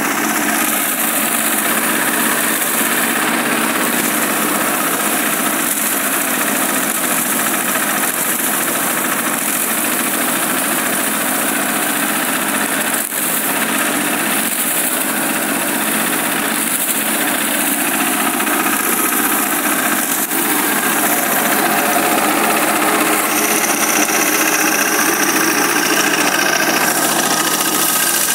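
A small engine running steadily without a break.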